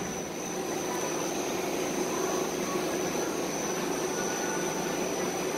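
Steady, even rushing hum of barn ventilation fans, with a thin high whine running through it.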